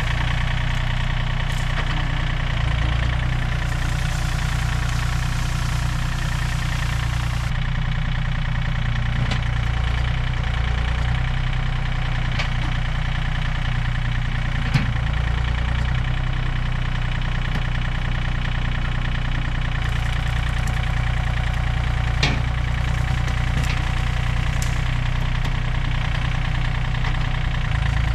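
John Deere 3025D compact tractor's three-cylinder diesel engine running steadily under load while the loader pulls a small tree out of the ground on a chain. A few sharp clicks come now and then.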